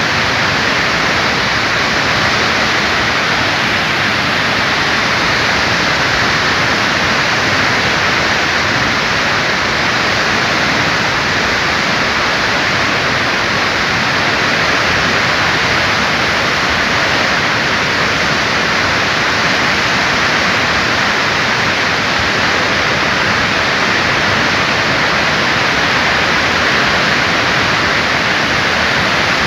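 Glacier-burst flash flood of muddy water and debris rushing down a river channel: a loud, steady, unbroken rush.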